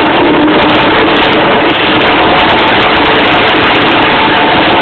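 Tornado airless paint sprayer running while spraying paint on a barrel: a loud, steady machine noise with an even hiss and a steady hum.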